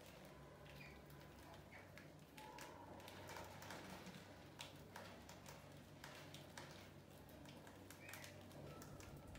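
Near silence: faint room tone with a low steady hum, scattered faint ticks and a few faint short chirps.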